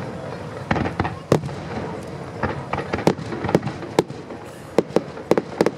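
Aerial firework shells bursting in a competition display: an irregular, rapid string of sharp bangs, well over a dozen in under six seconds, each with a short echoing tail.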